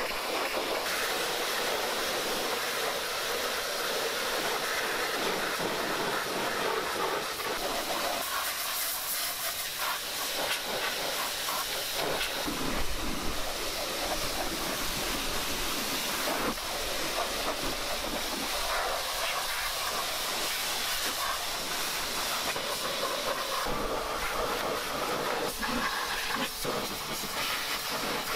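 Pressure washer jet blasting water onto a rusty lawn tractor: a steady hissing spray whose tone shifts as the jet moves over metal, tyres and concrete.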